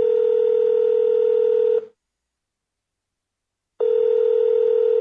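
Telephone ringback tone: a steady low tone that sounds for about two seconds, stops for two seconds, then starts again near the end.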